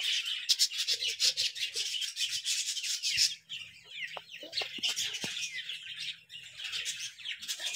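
Birds in a poultry yard chirping: a dense, fast chatter of high chirps that thins out after about three seconds into scattered calls.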